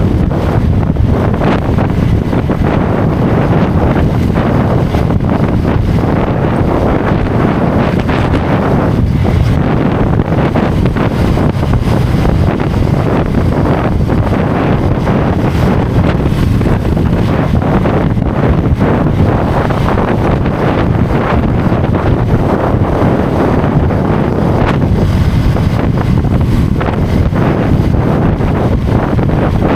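Heavy wind buffeting on the camera microphone of a motorcycle riding at highway speed: a loud, steady rush, strongest in the low end, flickering without letup.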